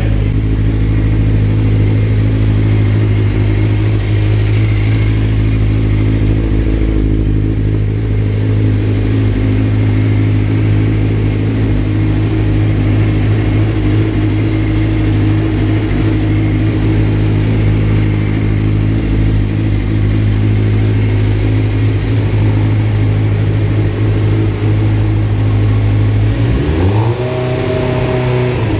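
Freshly rebuilt Suzuki GSX-R600 inline-four engine idling steadily, with one rev rising and falling back near the end.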